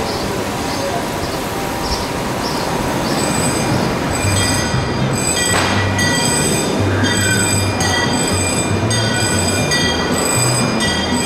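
Narrow-gauge railroad train's steel wheels squealing in high, on-and-off stretches over a low rumble, growing louder about four seconds in.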